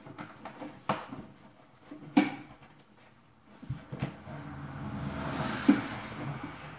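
Vinyl flooring being handled and worked in along the wall edge: a few sharp knocks, the loudest about two seconds in, then a spell of rustling and scraping with another knock near the end.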